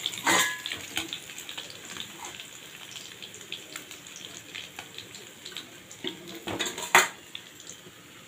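Hot oil in an iron kadhai crackling and sizzling lightly as fried fish pieces are lifted out with a slotted spoon. A scraping clatter comes just after the start and a sharp knock of a utensil against the pan about seven seconds in.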